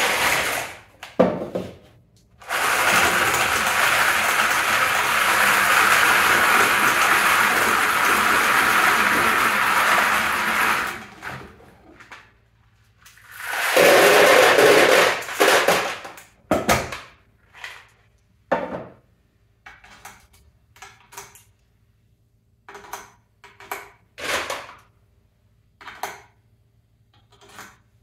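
Loose brass pistol cartridges being shaken in a plastic loading tray over a case gauge block, a steady metallic rattle for about eight seconds as the rounds drop into the holes, then a second shorter rattle. After that come a string of single clicks and taps of cartridges and plastic.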